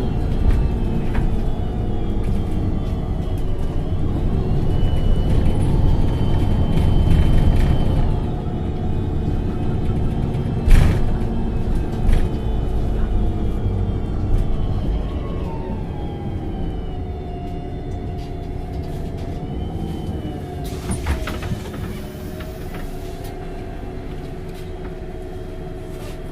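MAN NG 273 T4 articulated bus with its LPG engine and automatic transmission running under way, several steady tones gliding down and up in pitch as it changes speed. Two sharp knocks come about eleven and twelve seconds in, and over the last ten seconds the running settles into a quieter, steadier hum.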